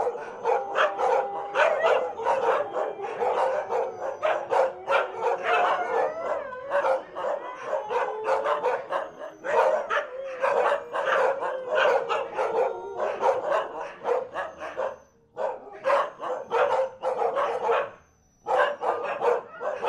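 A group of Siberian huskies barking rapidly and excitedly over one another, with long drawn-out howls held under the barking in the first several seconds. The barking breaks off briefly about fifteen seconds in and again near the end.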